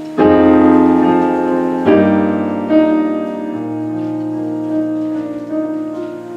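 Keyboard playing slow, held chords, with a new chord struck about a quarter second in, again near two seconds and just under three, each ringing on and slowly fading.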